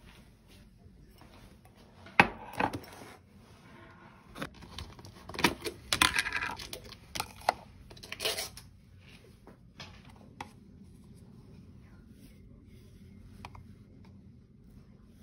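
Kitchen handling sounds: a sharp knock of a glass set down on a stone counter about two seconds in, then a few seconds of crinkling and tearing as packaging is pulled open, followed by a few light clicks of a spoon against the glass as yogurt is scooped in.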